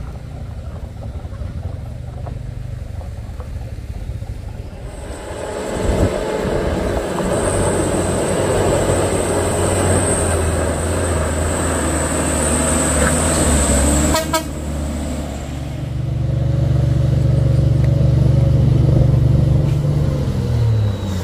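Heavy truck engine running and working hard, growing louder about five seconds in with a high thin whine over the middle, then a strong steady deep drone in the last few seconds.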